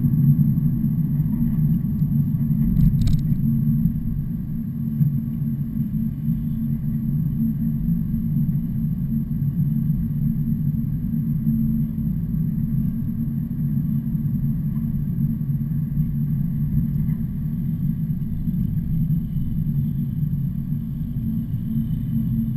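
A heavy truck's engine running steadily with a low, even drone. A brief click comes about three seconds in.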